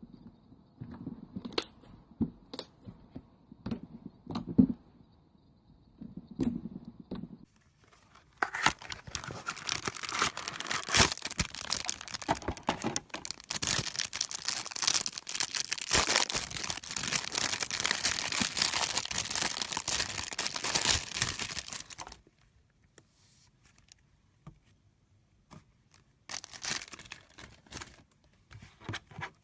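Slime being squeezed, stretched and pulled apart by hand: scattered wet clicks and pops at first, then a long stretch of dense crackling, with a short crackling burst again near the end.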